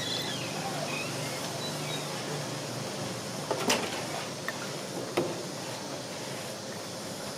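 A few light knocks of wooden cotton gin parts being handled and fitted together, over a steady background hiss.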